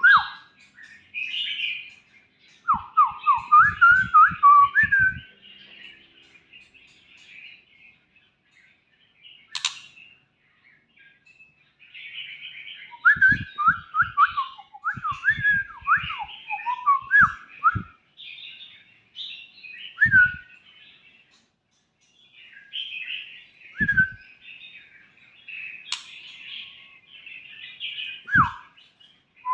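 White-rumped shamas calling: bursts of quick whistled notes over a high, twittering chatter, with two sharp clicks in between.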